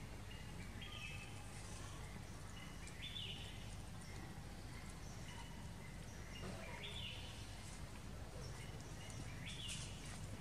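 Faint outdoor ambience: a steady low background noise with short, high bird chirps every second or two.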